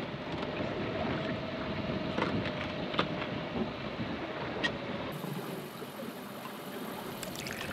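Wind and water noise around a sailboat, with a faint steady tone under it for the first five seconds and a few light clicks.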